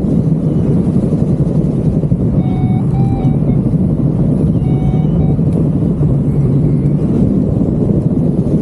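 Wind rushing over the microphone in flight, a loud steady rumble, with two short runs of beeps from a paragliding variometer, about two and a half and five seconds in, signalling lift.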